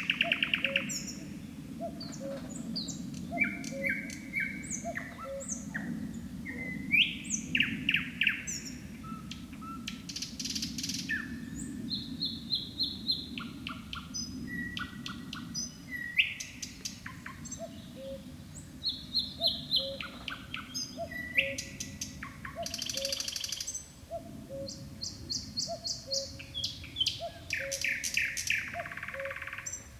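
Nightingale singing: a run of varied phrases made of repeated whistled notes and fast rattling trills. Beneath it there is a steady low rushing background and a soft low note repeating about once a second.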